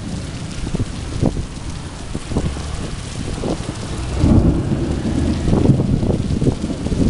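Heavy rain pouring down, with thunder rumbling low underneath; the rumble swells louder about four seconds in.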